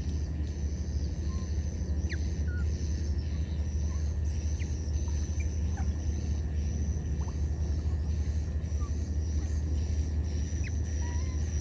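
Steady low rumble under outdoor ambience, with insects trilling in a high, pulsing band and scattered short high chirps.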